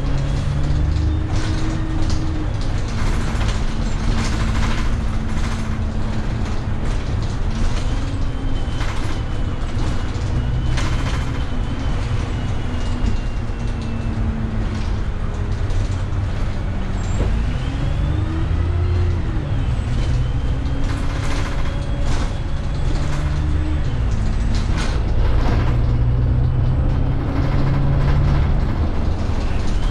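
Dennis Dart single-deck bus heard from inside while driving: the engine's pitch rises and falls several times as it speeds up and changes gear, with frequent short knocks throughout.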